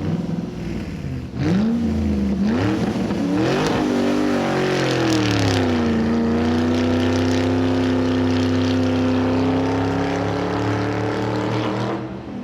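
Motor vehicle engine revving up and down a few times, then running at a steady, slowly rising pitch.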